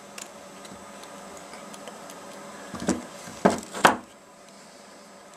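Handling noise from fingers working the wire legs of small red LEDs against a plastic mount: a few faint clicks, then three short, louder knocks close together about three seconds in.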